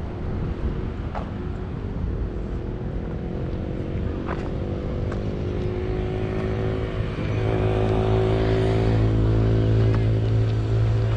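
A motor vehicle's engine running close by with a steady hum that slowly rises in pitch. It grows louder about seven and a half seconds in and then holds steady. A few sharp clicks sound in the first half.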